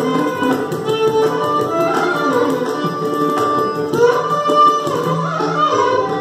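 Two violins playing a Carnatic melody in raga Andholika, sliding between notes, with mridangam and kanjira drumming the rhythm in Adi tala.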